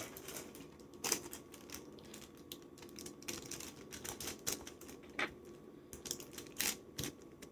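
Folded tissue paper being handled and pressed flat on a wooden tabletop: soft crinkling with scattered light taps and clicks.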